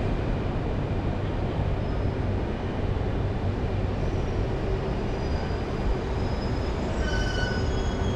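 Singapore MRT Circle Line train rumbling through the underground station behind the platform screen doors, a steady low rumble with a hum. About seven seconds in, high-pitched wheel squeal joins it.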